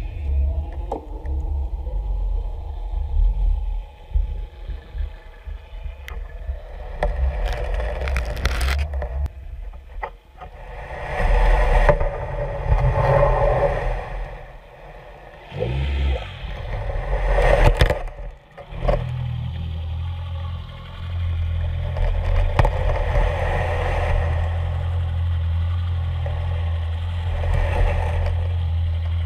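A shellfish dredge being towed over a sandy seabed, heard underwater: a low rumble with irregular scraping and clattering as its toothed frame rakes through sand and shells, settling into a steadier low drone about two-thirds of the way through.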